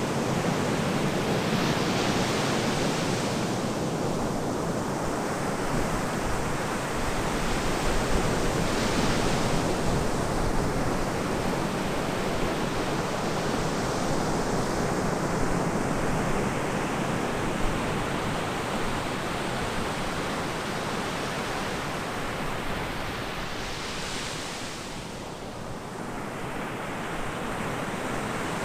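Ocean surf washing onto a beach, a steady rush of noise that swells with a few breaking waves, with wind on the microphone.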